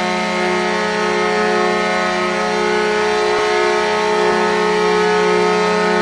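Wisconsin Badgers hockey goal horn blasting one long, unbroken, steady chord of several pitches.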